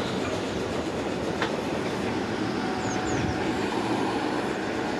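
South Western Railway Class 455 electric multiple unit running along the track, a steady rumble of wheels on rail with a single sharp click about a second and a half in.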